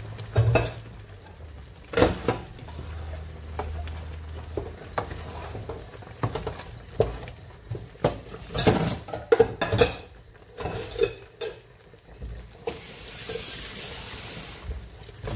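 Wooden spoon stirring thick ogbono soup in a stone-coated pot, with scattered knocks and clatters of spoon and crockery against the pot and hob. Near the end a tap runs for about two seconds.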